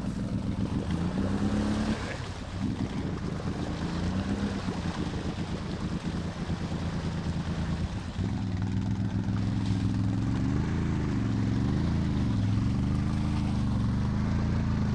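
ATV engine running under load, its revs rising and falling unevenly as the quad works through deep mud and water. The revs are choppy for the first several seconds, then steadier with slow swells.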